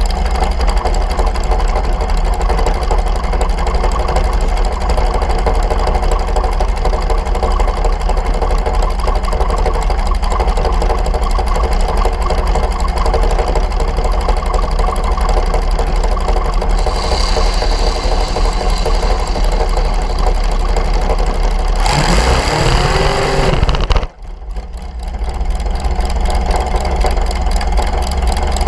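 Dragster engine idling steadily, close and loud, with a deep rumble. About 22 seconds in it swells into a louder rising-and-falling surge, then drops off sharply for a moment before settling back to idle.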